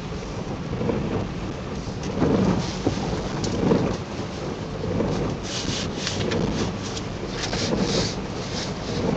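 Steady low road rumble inside a moving car, with the stiff shiny PVC rain suit crinkling and rustling as the wearer shifts in the seat, most busily from about halfway through.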